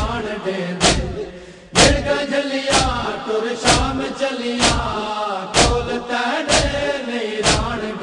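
A group of men chanting a Punjabi noha in unison, with a loud chest-beating thump (matam) keeping time about once a second. The chanting drops away briefly about a second and a half in, then comes back on the next beat.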